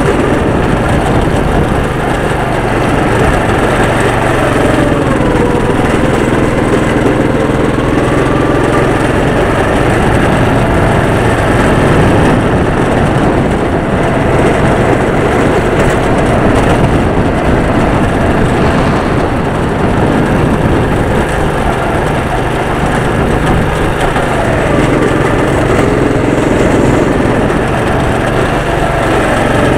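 Go-kart's small engine running continuously, heard on board. Its pitch rises and falls as the throttle changes through the corners.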